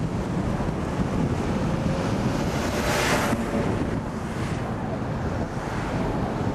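Steady road and wind noise from inside a moving car, with the hiss of an oncoming car passing close by about three seconds in.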